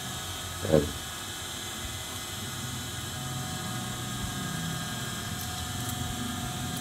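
Steady machine hum with several faint steady tones, with a person's short falling hum about a second in. Large tailor's shears make a couple of faint snips through cotton fabric near the end.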